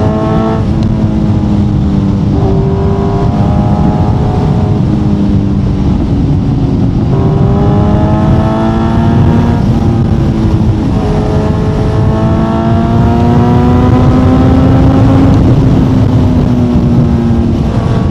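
Kawasaki Z900's inline-four engine through an Akrapovic exhaust, pulling under steady acceleration: the note climbs slowly in each gear and drops back at each of several upshifts.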